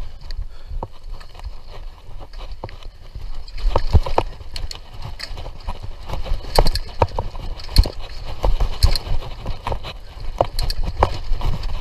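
Mountain bike rattling over a rough dirt trail: irregular knocks and clatter, several a second, over a steady low rumble.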